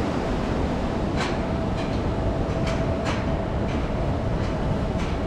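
Steady rushing, churning water noise from the aerated biological basins of a wastewater treatment plant, where air bubbles up through the activated sludge. A faint steady hum runs through most of it.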